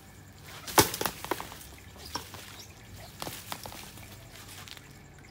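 Leaves rustling and sharp cracks and knocks as an arak (miswak) seedling grown in an orange plastic pipe is pulled out of the soil and handled. The loudest crack comes about a second in, with a few more spread through the rest.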